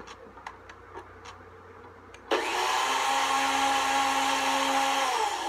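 Electric blender switched on abruptly about two seconds in and running loud and steady with a whining motor tone, its pitch sagging slightly near the end.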